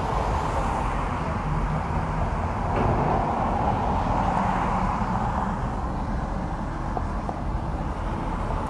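Steady low background rumble, with no distinct events.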